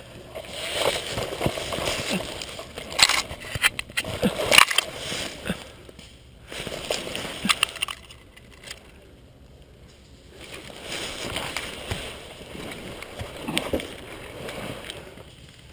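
Dry leaves and pine needles crunching and rustling under a person crawling over the forest floor, in several waves with a quieter pause in the middle and a few sharp snaps.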